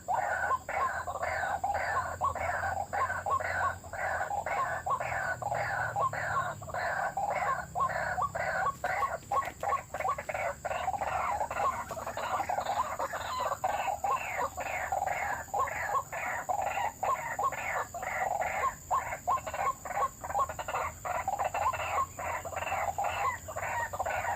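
White-breasted waterhen calling nonstop in a fast, rhythmic series of harsh notes, about three a second. This is the repeated call that trappers use as a lure.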